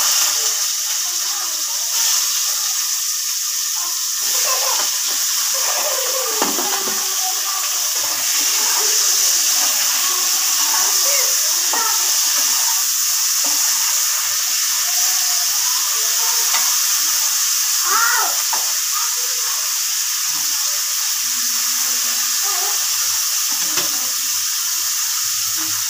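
Potato pieces frying in hot oil in a pan: a steady sizzling hiss, with occasional stirring in the pan.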